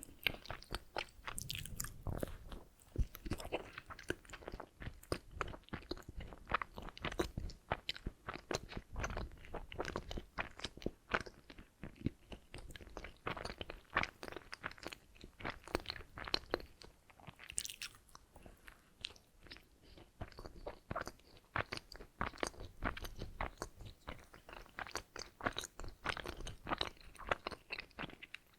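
Close-miked chewing and biting of donuts: a dense, unbroken run of small mouth clicks and smacks.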